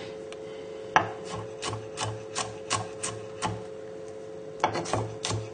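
Chef's knife roughly chopping garlic cloves on a wooden chopping board: a run of sharp knife taps on the wood, about three a second, a short pause, then a quicker burst of taps near the end.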